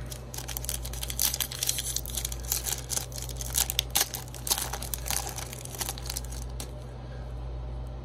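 Foil Yu-Gi-Oh! booster-pack wrapper crinkling and tearing as it is ripped open by hand, a rapid run of crackles that stops about two-thirds of the way through. A steady low air-conditioner hum runs underneath.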